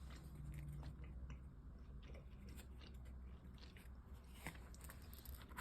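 Faint chewing of a soft jelly ring candy, with small wet mouth clicks.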